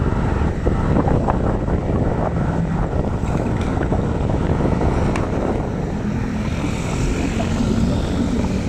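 Motorcycle engine running steadily while riding, with wind on the microphone and road noise.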